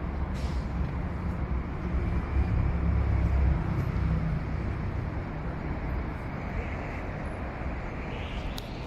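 Outdoor city ambience: steady noise of road traffic on the riverside streets, with a low, uneven rumble that swells a few seconds in and then eases.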